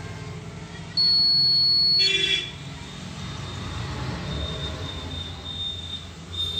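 Digital multimeter's continuity buzzer sounding as the probes touch a zener diode on an SMPS board: one steady high beep about a second long, then a short buzzy beep and faint broken chirps. The technician takes the continuity as a sign that the zener is shorted. A low steady rumble runs underneath.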